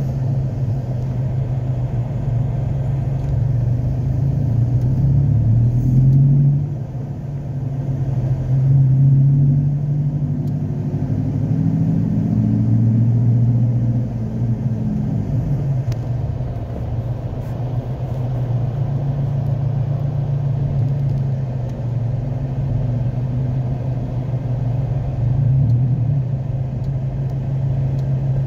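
Car engine and road noise heard from inside a moving car: a steady low hum whose pitch rises and falls a couple of times as the car speeds up and slows.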